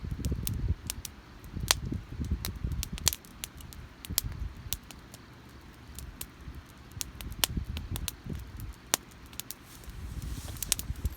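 Wood campfire crackling: irregular sharp pops and snaps, several a second at times, over a low uneven rumble.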